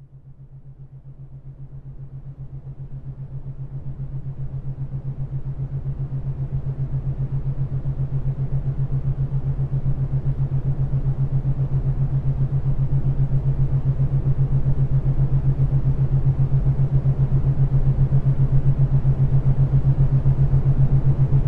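A low, pulsing drone that fades in from silence and grows steadily louder, with a rising hiss building above it.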